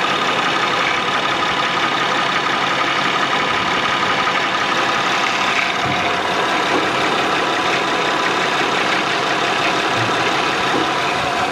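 2008 Honda Odyssey's V6 engine idling steadily, with an even hiss and a steady high whine over it. The power steering pump is broken and leaking fluid.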